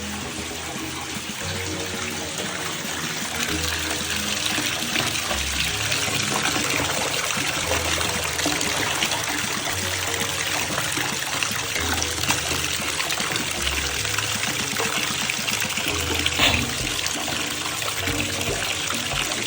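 Steady rush of running water under background music with a repeating bass line; the water cuts off suddenly at the end.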